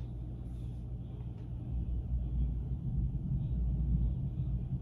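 A low, uneven rumble, growing slightly louder about two seconds in.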